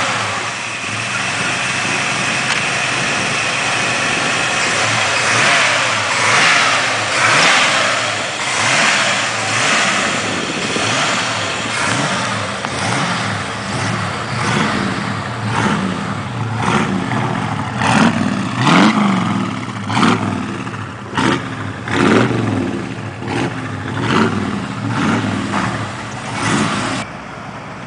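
1964 Ford F100 resto-rod pickup's engine running and being revved over and over. In the second half the revs are blipped sharply about once a second.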